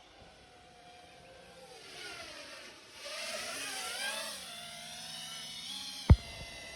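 FPV freestyle quadcopter's motors and propellers whining, the pitch rising and falling as the throttle is worked through a loop. A single sharp knock about six seconds in is the loudest sound.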